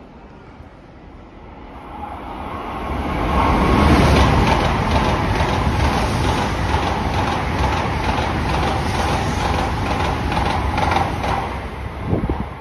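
Tokaido Shinkansen bullet train passing through the station at speed without stopping. A rush of air and running noise builds over about two seconds, then stays loud with a fast regular beat as the cars go by, and falls away just before the end.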